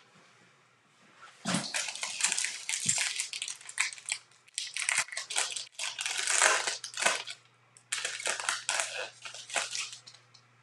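A 2020 Bowman baseball card pack's wrapper being torn open and crinkled by hand: irregular bursts of crackling from about a second and a half in until near the end.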